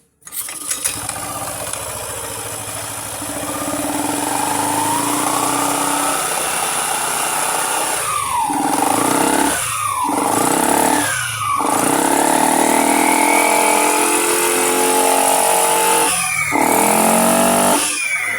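Yamaha Aerox 155 scooter's single-cylinder engine running and being revved repeatedly. The pitch climbs slowly, then drops quickly each time the throttle is shut, about five times.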